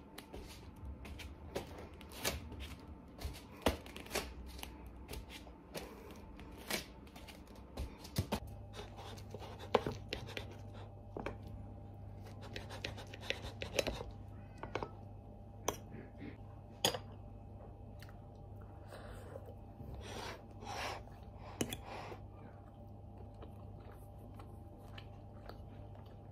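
Irregular small clicks, taps and rustles of objects being handled close by, with a steady low hum that starts about eight seconds in.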